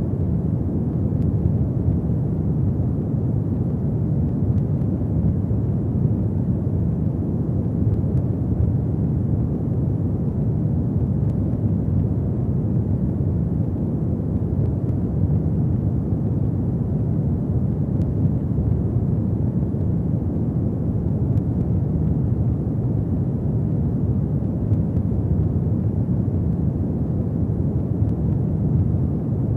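Log fire in a fireplace burning with a steady low rumble, and only a few faint crackles.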